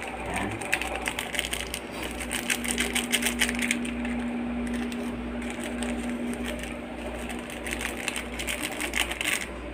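Dry, rapid crackling and rustling as crushed black pepper is pinched and sprinkled by hand over a marinade in a glass dish, over a low hum that pulses about once a second.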